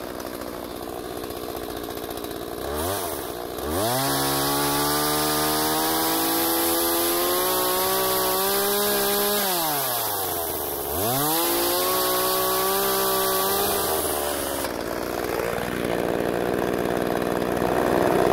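McCulloch Eager Beaver 2318AV 38 cc two-stroke chainsaw idling, then revved to full throttle twice while cutting a tree limb. Each time it holds a high steady pitch for about five seconds, dips between, and drops back to a lower note near the end.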